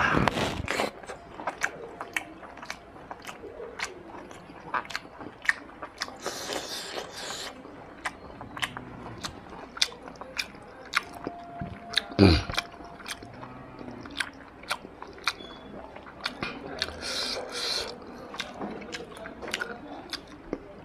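Close-up chewing and wet lip-smacking of a mouthful of rice and mutton curry eaten by hand, with frequent sharp mouth clicks. There are a couple of breathy hisses, and one louder sound falling in pitch about twelve seconds in.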